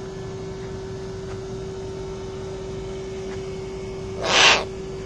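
Steady electrical hum from an outdoor air-conditioning unit, with one short breathy hiss about four seconds in.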